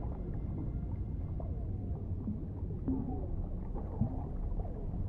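Underwater ambience: a steady, muffled low rumble with scattered bubble blips that glide down in pitch.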